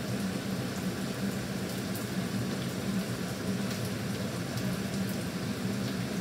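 Steady kitchen background noise: a low hum under a constant hiss.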